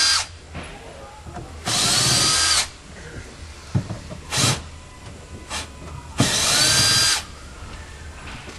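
Cordless drill-driver running in two bursts of about a second each, with a short blip between them, its motor pitch swinging as it speeds up and slows. It is backing out the screws that hold a refrigerator in its cabinet. A few light knocks come between the runs.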